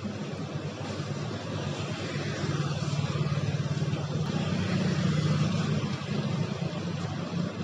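Steady rain falling on a wet road, with the engine hum and tyre swish of motorbikes passing through the water, swelling about three to six seconds in.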